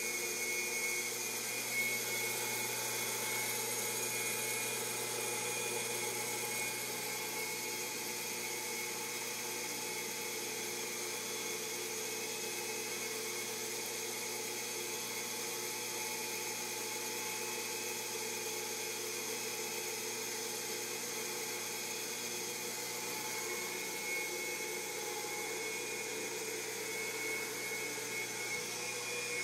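Thunderbolt 1000 siren rotator's electric motor running steadily on 220 volts, turning the rotating assembly through belts, pulleys and gears: an even, unchanging hum and whine.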